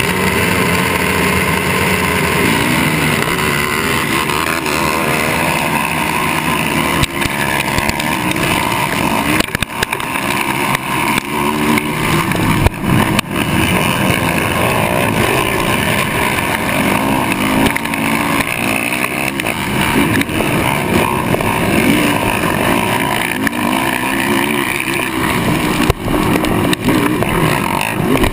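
Kawasaki KFX450R racing quad's single-cylinder four-stroke engine under hard throttle, its pitch repeatedly climbing and dropping back through the gears, heard from on board the machine, with other racing ATV engines in the mix.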